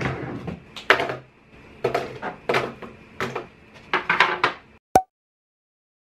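Art supplies being set down one by one on a desk: a wire basket of paint tubes and a palette knocking and clattering about once a second, ending in a sharp click.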